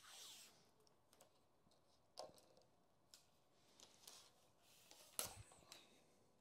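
Faint handling noises at a workbench: a short rustle at the start, then a few scattered clicks and light taps, the sharpest about five seconds in.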